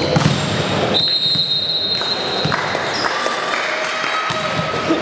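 Volleyball rally in a reverberant sports hall: sharp hits of the ball and players' thuds over a steady din of spectators, with a steady high whistle-like tone lasting about a second, starting about a second in.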